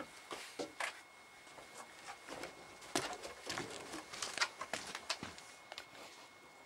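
Scattered light taps and clicks of footsteps and a puppy's paws on wooden decking.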